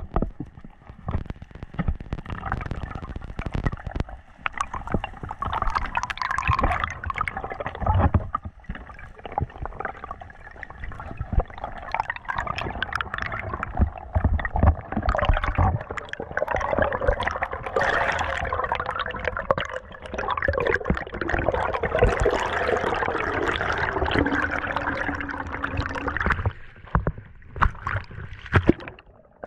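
Water gurgling and sloshing around a camera held underwater as a diver swims, with irregular splashes and bubbling; it eases off a few seconds before the end as the camera comes up to the surface.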